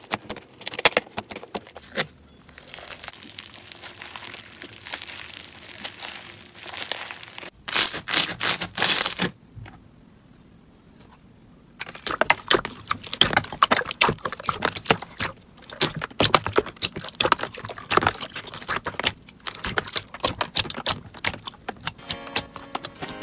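Slime being squeezed, poked and stretched by hand, making dense crackling and popping clicks, with a short quiet gap about ten seconds in.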